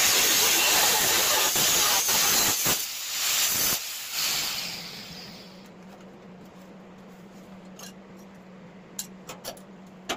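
Angle grinder cutting through a rusted steel mower deck, stopping about four seconds in as the disc winds down. A low steady hum stays after it, with a few light clicks near the end.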